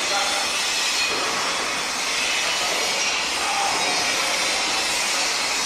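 Construction-site din: a steady, loud rushing noise of machinery, with a few faint, short whining tones rising out of it now and then.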